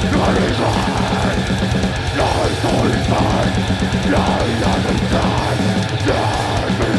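Death metal band playing live: distorted electric guitars and a full drum kit with rapid, even kick-drum strokes, with a vocalist singing harshly over them.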